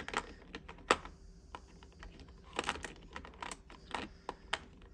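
Irregular light clicks and taps of small metal tool pieces against a plastic tool case as they are fitted into and handled in their slots.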